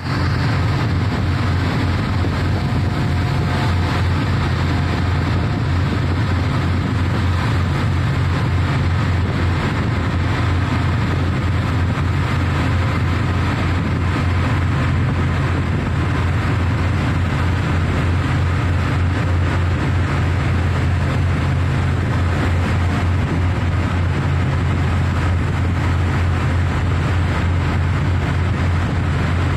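Steady low drone of heavy offshore platform machinery with a hissing noise over it, unchanging throughout.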